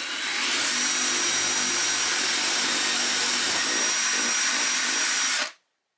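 DeWalt XR cordless drill boring a 7 mm hole through a wooden baseboard, running steadily at full speed with a thin high whine, then stopping abruptly about five and a half seconds in.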